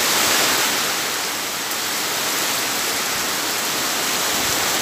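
Heavy typhoon rain pouring steadily, a dense even hiss.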